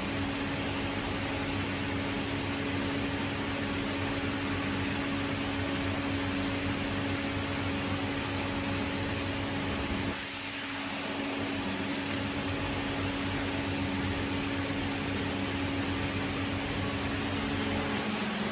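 Steady mechanical hum with a constant low tone over a noisy rush, dipping briefly about ten seconds in.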